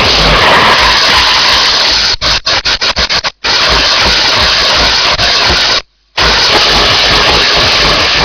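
Loud, harsh distorted noise from a hardcore/noise DJ mix. It cuts out abruptly a few times, with a rapid stuttering chop between about two and three and a half seconds in.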